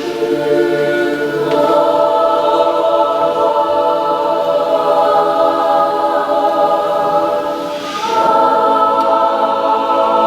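Unaccompanied mixed choir singing an Orthodox troparion in long held chords; the harmony moves to a new, fuller chord about a second and a half in, dips briefly, and swells into another held chord near eight seconds.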